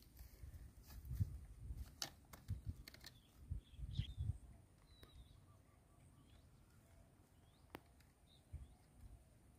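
Woven bamboo fish trap being lifted, turned and set down on grass: soft bumps and rustles over the first four seconds, and one sharp click near the end. Birds chirp faintly throughout.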